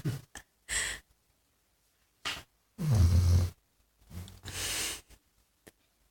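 Vizsla dog snoring in deep sleep: one long, loud, low rumbling snore about three seconds in, then a breathy hiss, with shorter snuffles and a brief whistly breath near the start.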